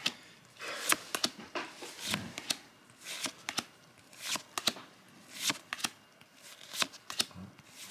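Pokémon trading cards being flipped through one at a time, each card slid off the front of the stack and tucked behind with a sharp flick. About a dozen quick snaps and slides at uneven spacing.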